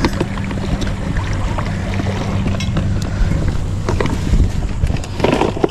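Plastic tackle boxes clicking and rustling as they are rummaged in a fabric shoulder bag, with a cluster of louder knocks near the end, over wind on the microphone and a steady low hum.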